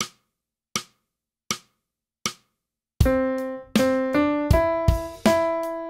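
Four evenly spaced count-in clicks at 80 beats a minute, then an electronic keyboard on a piano sound plays a short phrase of single notes over a drum beat, starting about three seconds in.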